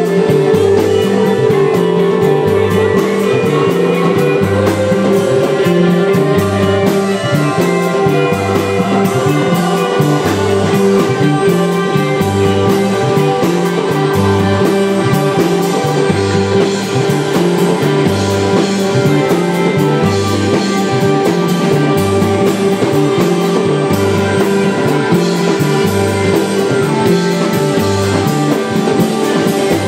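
Live rock band playing amplified electric guitars, bass guitar and drums, over a repeating bass figure.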